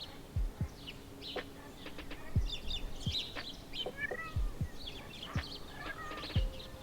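Small birds chirping and twittering in short, scattered calls, with soft low thuds now and then, roughly once a second.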